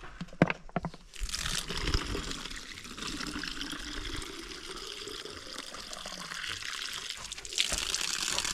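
A few sharp knocks, then water pouring in a steady stream from about a second in, growing a little louder near the end: watering young plants.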